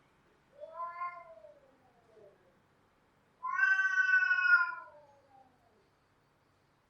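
Cat yowling: two drawn-out wailing calls, the first shorter, rising then falling, the second louder and longer, sliding down in pitch at the end.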